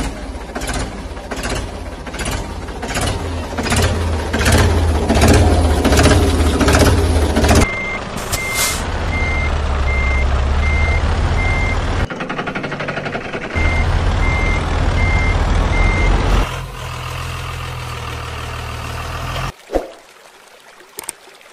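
Heavy truck engine running with a regular chugging beat. About eight seconds in, a reversing alarm starts beeping over the engine at a little under two beeps a second, in two runs with a short break between them. Near the end the engine sound cuts off suddenly.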